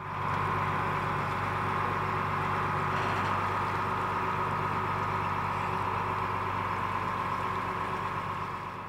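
Small car ferry's diesel engine running steadily as the boat pulls away from the quay: a low hum with a steady whine over it, fading near the end.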